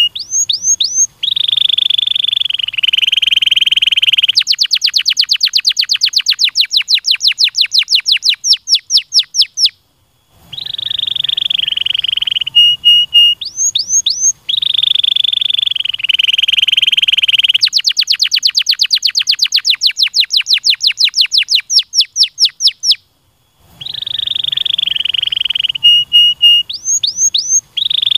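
Domestic canary singing: a long buzzy rolled trill, then a rapid run of high notes, each sweeping downward, broken by short pauses. The same song phrase repeats about every thirteen seconds.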